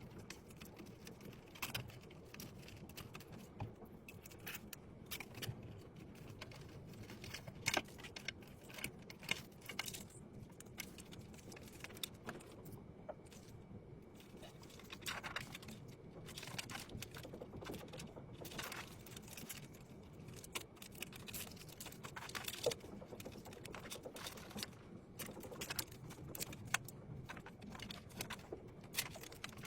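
Irregular small clicks, taps and a few short scrapes of hard parts being handled, such as computer hardware being fitted together.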